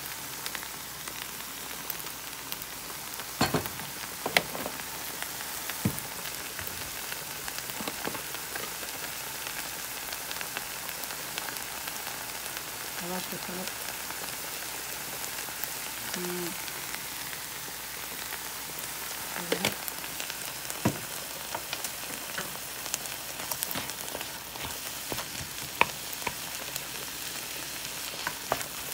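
Ground beef and chopped onion sizzling steadily in a frying pan, with a wooden spoon knocking and scraping against the pan now and then as the mixture is stirred.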